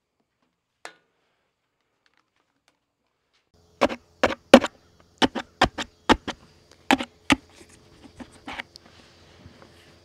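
Near silence, then a run of about a dozen sharp knocks over some five seconds, loudest early, fading to lighter taps: a garden-light stake punching the drain holes out of the bottom of a plastic flower pot.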